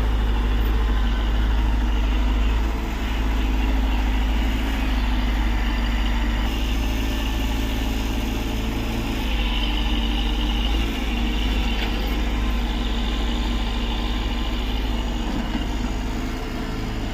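Diesel engine of a Tata Hitachi EX70 excavator running steadily, with slight dips in level about three seconds in and near the end.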